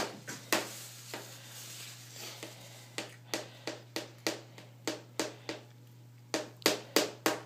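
Small metal spoon tapping and scraping on a plastic high-chair tray: a string of sharp clicks, about three a second from the middle on, with a quicker flurry near the end, over a steady low hum.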